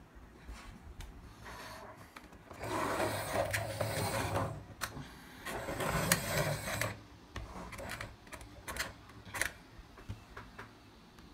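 Plastic toy car wheels rolling and rubbing across a wooden tabletop in two pushes, each lasting a second or two, with scattered clicks of plastic parts.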